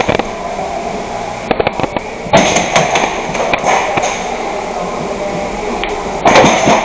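Gas blowback airsoft guns firing irregular single shots and short strings of sharp clacks. The loudest clusters come about two and a half seconds in and again near the end.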